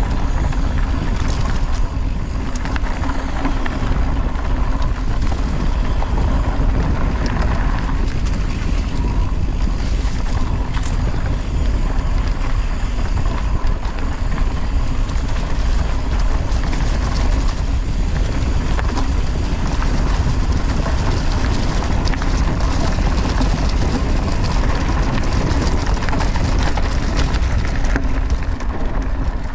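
Wind buffeting an action camera's microphone on a fast mountain-bike ride, over a constant rumble and rattle of the tyres and bike on a rough trail. It drops off suddenly at the very end.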